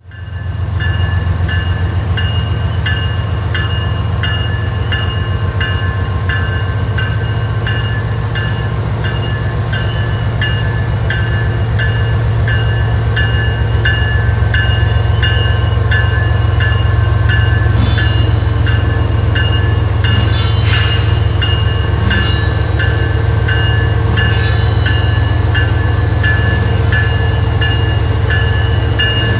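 BNSF freight train rolling past: a steady low diesel-locomotive rumble with light rhythmic wheel clicks about twice a second, and a few short harsh bursts of higher noise in the second half.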